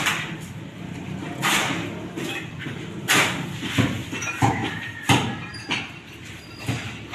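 Mason's trowel scraping and knocking wet mortar at the edge of a ceramic stair tile, about eight short, sharp strokes at irregular spacing.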